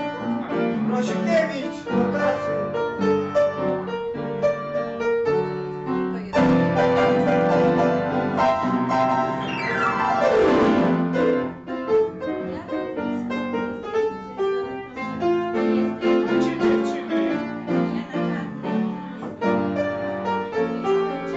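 Upright piano played live, a run of notes and chords; about ten seconds in, a fast glissando sweeps down the keyboard from high to low.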